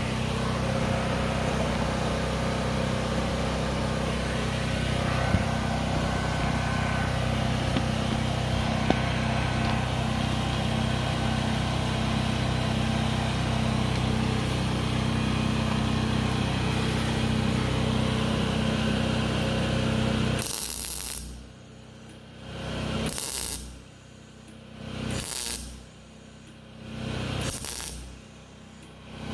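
Wire-feed welder arc crackling and buzzing on exhaust pipe in one continuous run for about twenty seconds, then in about five short bursts roughly two seconds apart, filling gaps in the joint.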